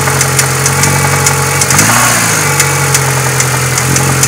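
Renault F4R 2.0-litre 16-valve four-cylinder petrol engine idling with a sharp, uneven knocking, and a short blip of the throttle about two seconds in. The owner takes the knock for a valve plus something like a worn connecting-rod bearing.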